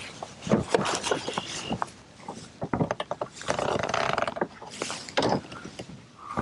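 Fishing gear being handled on a plastic kayak: a string of sharp clicks and knocks as the rod, paddle and landing net rattle against the hull and fittings, with short spells of rustling.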